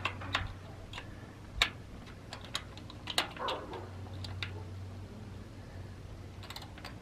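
Scattered light clicks and taps of plastic on plastic at irregular intervals, as a small hand tool works the insect screen back into a plastic roof vent frame. A faint steady low hum sits underneath.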